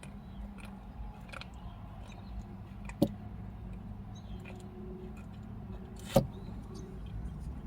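Quiet eating at the microphone: chewing with faint mouth clicks, over a steady low hum. Two sharper clicks stand out, about three and six seconds in.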